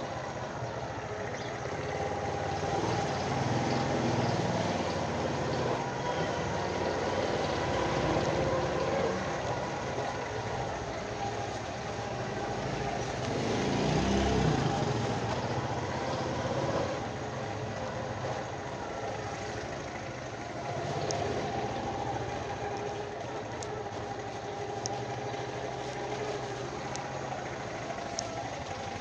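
Motorcycle engine running steadily while riding, swelling louder about halfway through.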